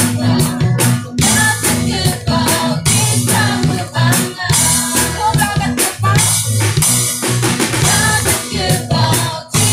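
Live worship song: a group of voices singing together over a drum kit beat and acoustic guitar.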